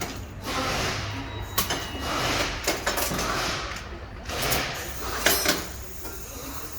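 Hand tools and metal car parts scraping and clinking as parts are fitted back onto the front suspension, with several sharp metallic clicks spread through it.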